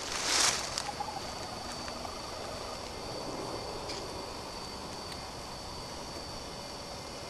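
Quiet night-time background: a steady hiss with a faint, unbroken high tone, and a brief rustle about half a second in.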